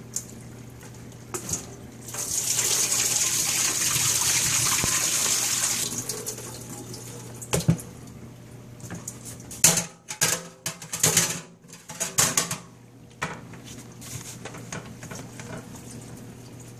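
Water running and splashing into a stainless steel kitchen sink as morel mushrooms are rinsed and drained in a metal pot, steady for about four seconds. Then a series of sharp knocks and clatters as the metal pot is handled and tipped against the sink.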